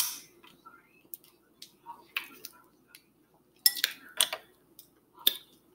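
Mussel shells clicking and clinking against each other and the glass dish as they are picked through by hand: a handful of short, sharp clinks, the loudest in the second half.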